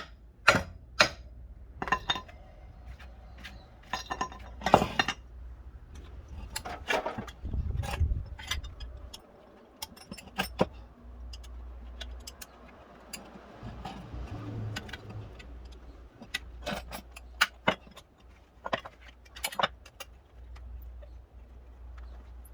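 Irregular metallic clicks, clinks and knocks, as of tools and metal parts being handled, over a faint low hum.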